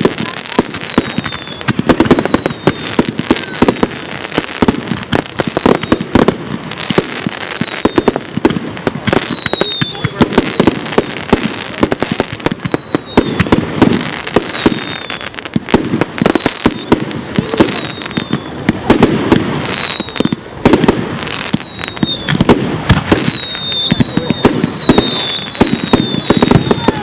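Fireworks display: rockets and aerial shells going off in a dense, continuous run of bangs and crackles. Many short, high whistles glide down in pitch over the top, more of them near the end.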